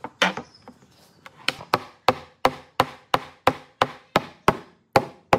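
Repeated hard strikes on wood, a few at first, then a steady run of about three blows a second, like a hammer or mallet working a piece of timber.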